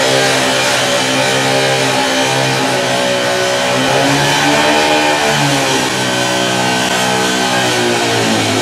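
Gas-powered cut-off saw running at high revs while its blade cuts into the steel body of a garbage truck. The engine's pitch sags and recovers a few times as the blade bites into the metal.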